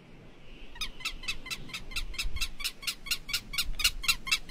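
An animal calling in a rapid, even series of short notes, about six a second, starting just under a second in, over a faint low rumble.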